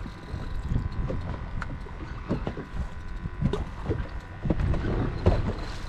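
Irregular knocks and thumps aboard a small fishing boat in rough water, over a low rumble, with a faint steady hum.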